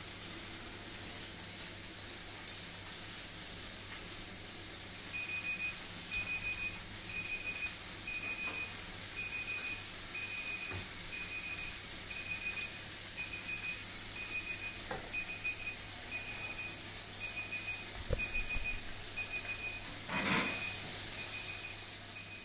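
Steady hiss with a kitchen appliance timer beeping: a short high beep repeating about every 0.8 s from about five seconds in, with a knock near the end.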